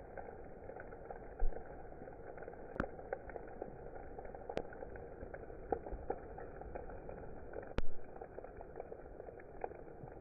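Hail and heavy rain falling on waterlogged ground and puddles: a steady, muffled hiss dotted with many small ticks of hailstones landing, and three sharper knocks, the loudest nearly eight seconds in.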